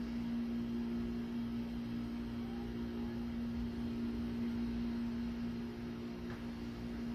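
A steady machine hum, held at one pitch with a few overtones, over a low rumble.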